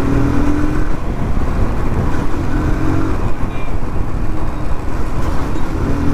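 Motorcycle riding at steady speed: the engine runs evenly under a constant rush of riding noise.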